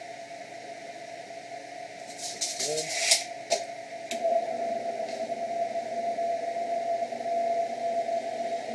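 Benchtop drill press motor running with a steady hum. Two to four seconds in come a few sharp clicks and clanks as the feed is brought down and the bit meets the square tube. After that the bit cuts steadily into the tube under the motor hum, drilling without cutting oil.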